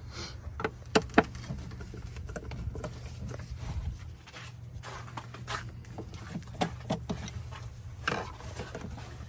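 Scattered sharp clicks and light taps of a hand tool and fingers working at the screws of a plastic engine air filter housing, a cluster about a second in and a few more later, over a steady low hum.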